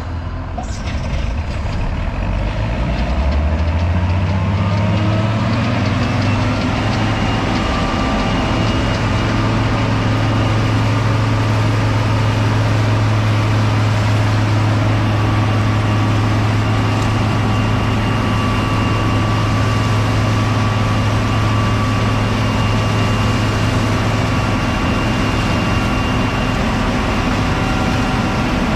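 Combine's diesel engine throttling up over the first few seconds, its pitch rising, then running steadily at high speed with a constant drone.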